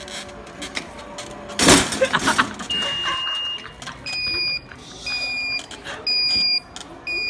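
Electronic beeping from a store motorized shopping cart: one longer high beep, then a run of shorter beeps about once a second. Before the beeping there is a brief loud clatter.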